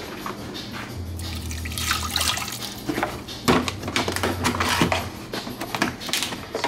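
Water sounds from a pot of saltfish heating on an electric stovetop, with several sharp clicks and knocks.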